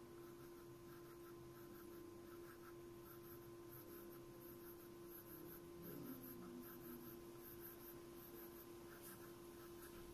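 Pencil scratching on paper in quick, repeated short hatching strokes, faint, over a steady low hum.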